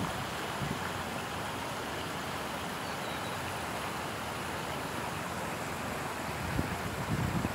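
Water pouring over a river weir: a steady rushing, with wind buffeting the microphone in low bumps near the end.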